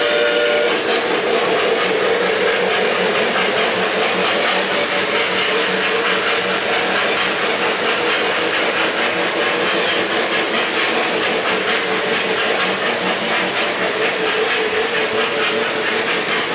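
O-gauge three-rail model freight train rolling past close by, its metal wheels running over the track with a steady, rapid rattle.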